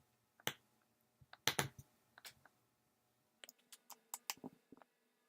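Irregular small sharp clicks and taps of a knife tip working at a phone's tiny screws, thickening into a quick run of clicks near the end.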